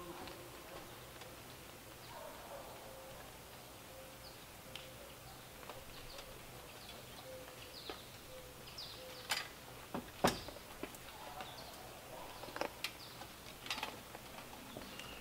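Sharp knocks and clunks of boots and hands on an aluminium ladder and log rafters as someone climbs up onto a roof frame. There are half a dozen knocks in the second half, the loudest about two-thirds of the way through, over faint bird chirps.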